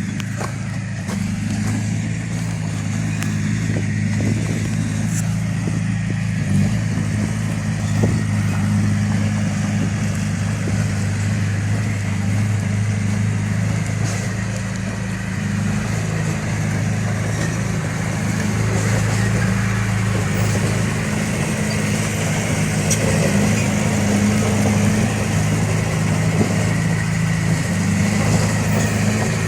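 Heavy diesel engine of a bulldozer or truck running steadily, with a few faint knocks about six to eight seconds in.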